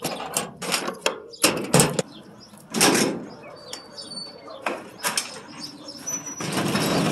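Keys and a padlock clicking against a metal hasp, then a large sheet-metal door rattling and scraping as it is hauled open, loudest about three seconds in and again near the end.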